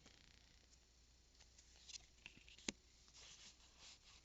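Faint rustling and light tapping of trading cards being slid out of a freshly torn foil booster pack and handled, with one sharp click about two and a half seconds in.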